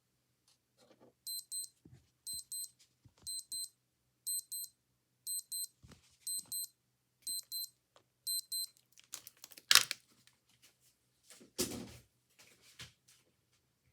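Old digital watch alarm beeping in high-pitched bursts of four quick beeps, about one burst a second, eight times over. After it stops come rustling handling noise and two loud knocks, the loudest sounds here.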